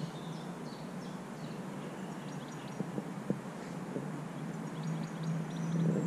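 Outdoor riverside ambience: a steady low hum with faint, scattered bird chirps, and a few soft ticks as the fly and line are handled about three to four seconds in.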